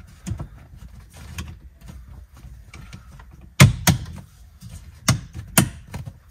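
Hard plastic steering-column parts being handled and pressed into place: four sharp clicks in the second half, the first the loudest, among quieter knocks and rustles.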